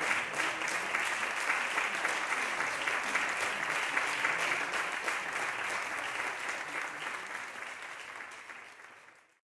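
Audience applauding, steady dense clapping that fades away over the last couple of seconds and cuts off.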